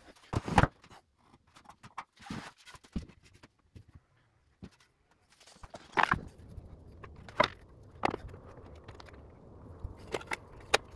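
Footsteps and scattered light knocks and scrapes of a wooden baseboard being handled and laid against a miter saw on a concrete patio.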